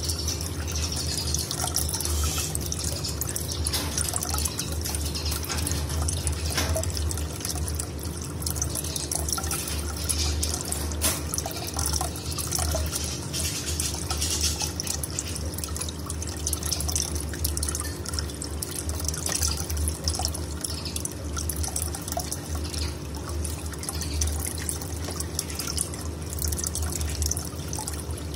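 Steady running, dripping water over a low steady hum, with a few faint clicks.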